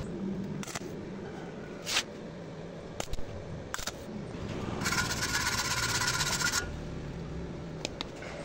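Stick-welding arc tacking thin square steel tube. A few short crackles come as the arc is struck, then a little under two seconds of steady crackling sizzle as the tack is laid, which cuts off suddenly.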